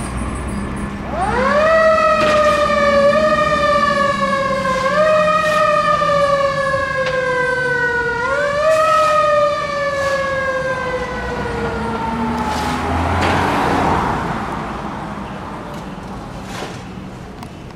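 Fire truck's mechanical-style siren winding up sharply about a second in, then coasting slowly down in pitch, pushed back up twice, and finally sliding down and fading out.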